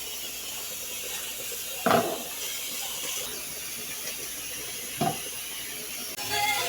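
Spoon scraping the bottom of a pan of thickening banana sweet, twice, over a steady hiss.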